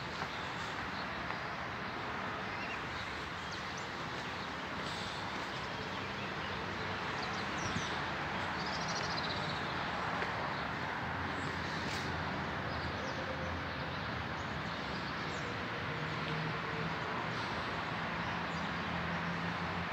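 Outdoor street ambience: a steady hiss of distant traffic with scattered bird chirps, and a distant truck engine humming steadily in the last few seconds.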